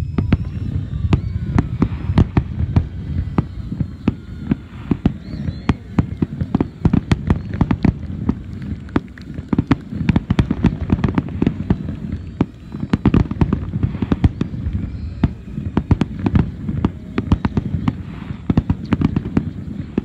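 Aerial fireworks shells bursting in a rapid, unbroken string of booms and cracks, several a second, over a low rumble.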